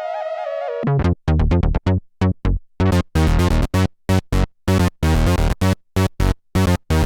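Roland SE-02 analog monophonic synthesizer: a held lead note with wavering pitch stops about a second in. It gives way to a fast sequence of short, deep, chopped notes with brief silences between them.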